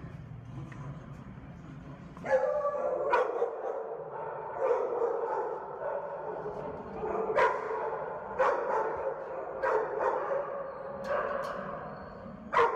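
Shelter dogs in their kennels barking repeatedly, starting about two seconds in, with sharp barks coming roughly once a second.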